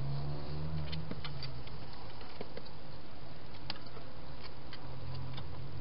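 Wild hedgehogs moving about at a plastic feeding box, making scattered light clicks and taps. A low hum runs through the first second and a half and comes back near the end.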